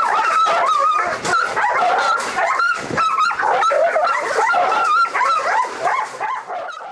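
Dogs barking, yipping and whining excitedly in a dense, continuous stream of high wavering cries and sharp barks, fading out near the end.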